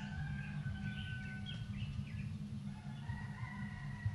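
Birds calling, with thin held notes and short chirps, over a steady low rumble.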